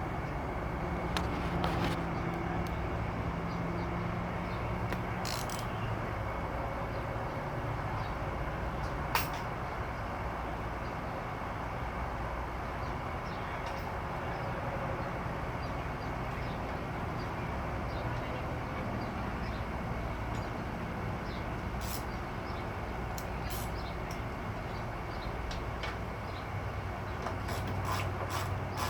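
A motor vehicle's engine running steadily as a low rumble, with scattered light clicks and taps over it.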